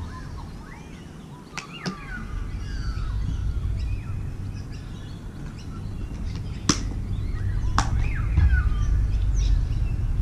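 Birds chirping and calling over a steady low rumble, with a few sharp clicks, the loudest about two-thirds of the way through.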